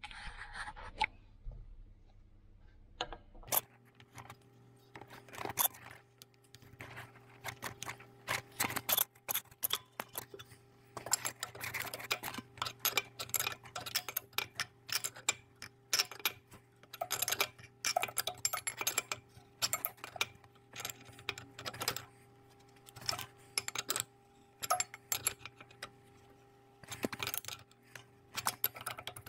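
Irregular light metallic clicks and taps as a Defa block heater element is fitted and threaded into the side of a Kubota V1505 diesel engine block. A steady low hum comes in about three and a half seconds in.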